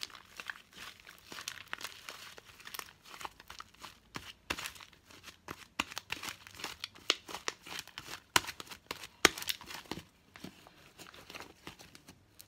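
Fluffy slime being squeezed, stretched and folded by hand, giving irregular wet crackles and popping clicks as air pockets burst. The crackling is busiest in the middle and thins out near the end.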